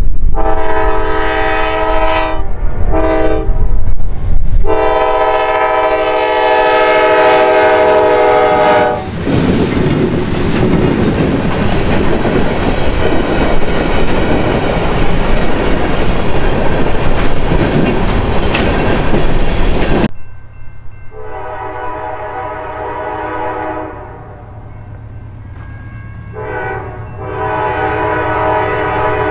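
Multi-note air horn of CSX GE C40-9W locomotive 9005 sounding for a grade crossing: a long blast, a short one, then another long one. Then freight cars roll past with steady wheel-on-rail noise. After a sudden cut, the horn sounds twice more, fainter and more distant.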